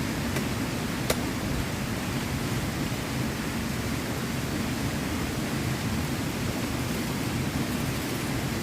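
Steady, even rush of heavy rain, with one sharp click about a second in.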